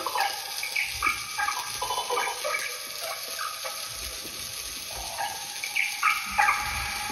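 Watery gurgling and bubbling sounds, with short pitched blips coming and going and a few dull thumps.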